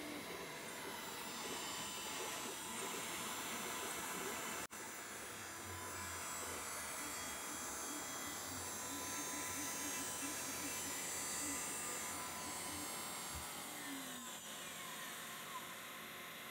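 CNC router spindle running at about 19,700 RPM with a 3 mm tapered ball-nose bit, milling a finishing pass in extruded polystyrene foam: a steady whine with a hiss, with a brief dropout about five seconds in.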